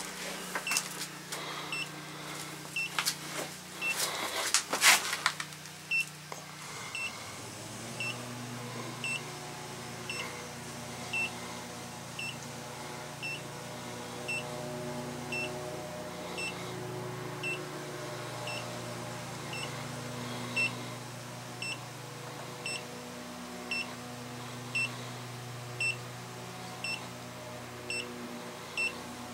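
Handheld Klein Tools combustible gas leak detector beeping with short, even, high-pitched beeps about once a second, its slow rate when it senses no gas. Handling knocks come in the first few seconds, and a steady low machine hum starts about seven seconds in.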